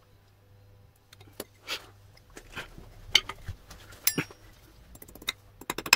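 Small metal parts and hand tools being handled and set down: scattered light clicks and knocks, a sharp ringing metallic clink about four seconds in, and a quick run of clicks near the end.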